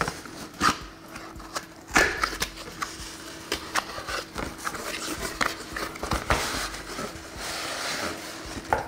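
Hands opening a cardboard binocular box: irregular knocks, taps and scrapes of cardboard against a wooden table as the box and its inner cardboard tray are handled, then a longer rustle near the end as the nylon carrying case is pulled out.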